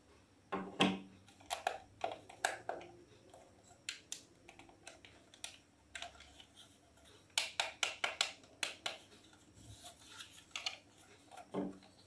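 Handling of a plastic toy remote control: a scattered series of sharp clicks and taps, thickest a little past the middle, as its sticks are worked and the case is turned over.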